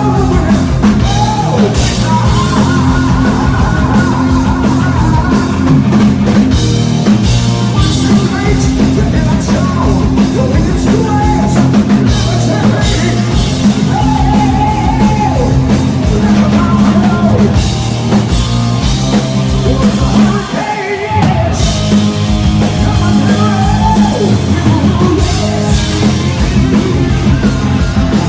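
Hard rock band playing live, loud: driving drum kit, distorted electric guitars and shouted, sung lead vocals. The band briefly drops out about twenty seconds in, then comes straight back.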